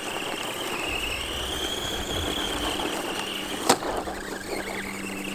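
Redcat Volcano EPX RC truck's brushed electric motor whining, its pitch wavering as the throttle changes, with one sharp knock a little over halfway through as the truck strikes a log.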